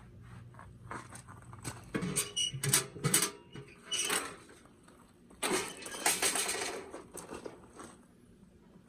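Small objects being handled: bursts of rustling, clicking and scraping, loudest about two to four seconds in and again around six seconds in, over a faint steady hum.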